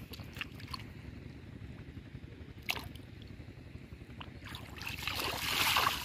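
Hands working in shallow muddy water: a few small drips and plops at first, then splashing that builds over the last second and a half as a fish is grabbed.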